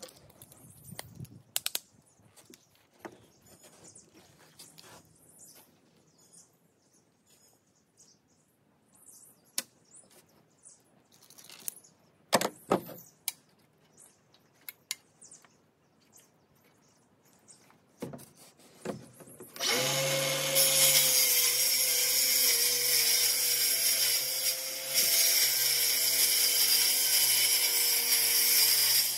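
Circular saw cutting through an OSB roof sheet, starting about two-thirds of the way in and running steadily with a whine to the end. Before the saw, scattered light taps and knocks.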